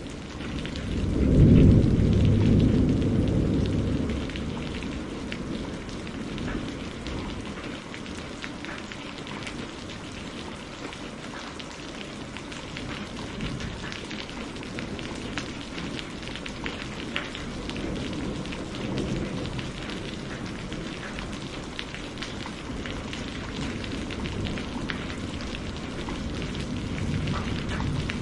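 Steady rain falling, with fine drops throughout. A roll of thunder swells about a second in, the loudest moment, and dies away over a few seconds; fainter rumbles come about two-thirds of the way through and near the end.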